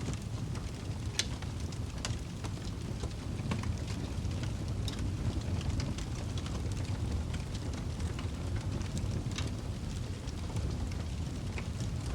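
Wood fire crackling in a fireplace: a steady low rumble of burning with scattered sharp pops and crackles a few times a second.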